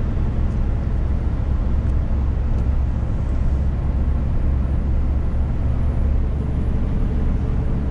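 Steady low rumble inside the cab of a Scania S500 truck cruising at highway speed: engine drone and tyre noise, unchanging throughout.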